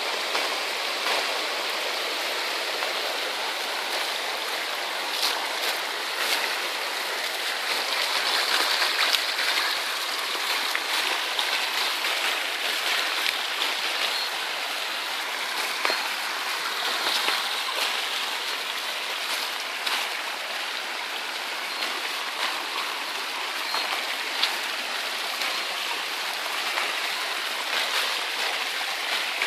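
Muddy storm runoff rushing steadily along a washed-out dirt track, with a few faint short clicks scattered through it.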